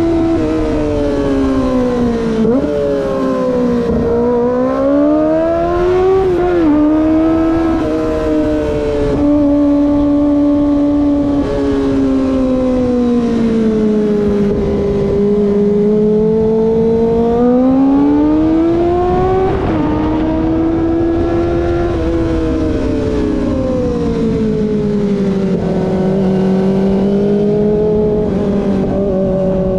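Kawasaki ZX-25R's 250 cc inline-four engine under way. Its pitch climbs and falls several times as the rider opens and rolls off the throttle, with a few quick drops in pitch at gear changes.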